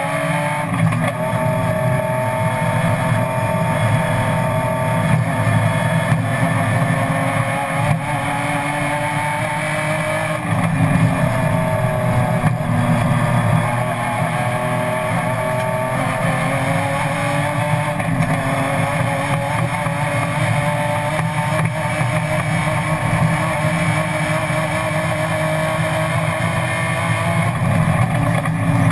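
BMW M3 race car engine running hard at high revs, heard from inside the stripped, roll-caged cabin. Its pitch steps and climbs again at about ten and eighteen seconds in, as it shifts gear.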